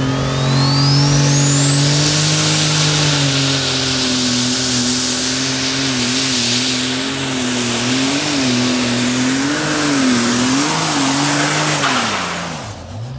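A Super Stock pulling tractor's turbocharged diesel engine runs at full power down the track. A high turbo whine climbs over the first two seconds and then holds. The engine note wavers up and down several times in the second half, and near the end the power is cut: the whine stops abruptly and the revs fall away.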